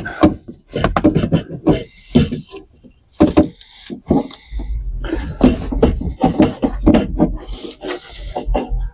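Handling noise: a quick run of knocks, clicks and clatter as tools, parts and camera gear are picked up and moved, with short scraping rustles and a low rumble from about halfway through.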